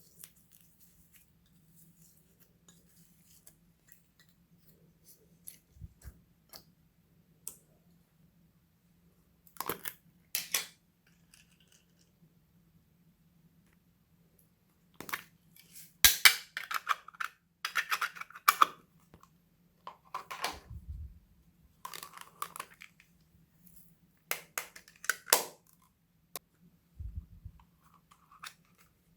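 Homemade slime being pressed, squished and mixed by hand: intermittent sticky crackling and popping, sparse at first and much busier from about halfway on, with a few soft low thumps.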